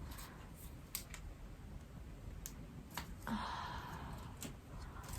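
Faint, scattered light clicks and handling noise of a nail sticker being peeled from its sheet, with a short soft hiss about three seconds in.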